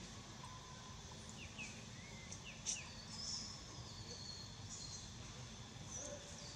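Outdoor tree-canopy ambience: a steady low background noise with a few short high chirps scattered through it and one sharp click a little before the middle.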